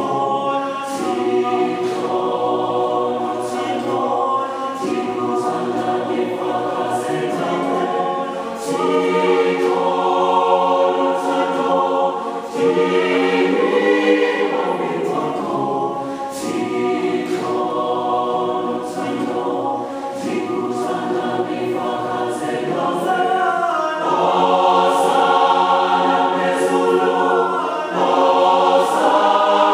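Large mixed choir of men's and women's voices singing in harmony, growing louder in the last few seconds.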